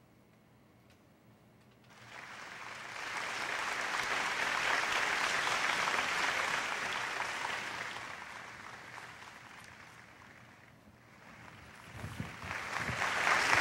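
Audience applauding, starting about two seconds in, dying away, then starting up again near the end.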